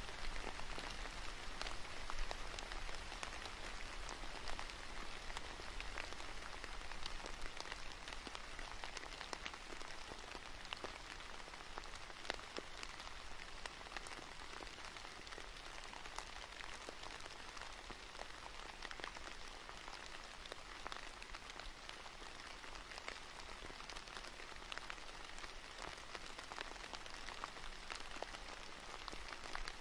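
Steady rain falling, with many separate drops heard as small ticks over an even hiss; slightly louder in the first few seconds.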